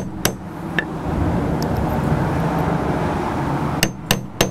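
Claw hammer tapping a 17 mm socket to drive a new tilt-and-trim dust seal into its cap: two taps just after the start and three quick taps near the end. Between them, a steady low rushing noise lasts about three seconds.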